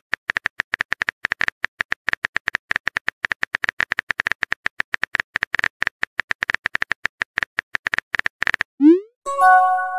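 Rapid keyboard typing clicks as a text message is typed out. Near the end a short rising swoop and a brief chime mark the message being sent.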